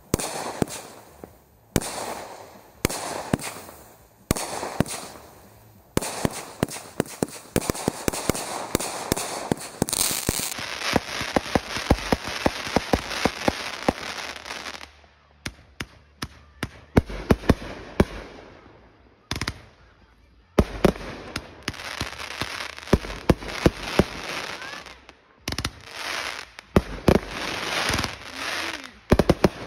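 Consumer fireworks going off: separate aerial bursts about every second and a half, then a long run of dense crackling. About halfway through, a firework cake takes over, firing clusters of sharp shots and crackling breaks.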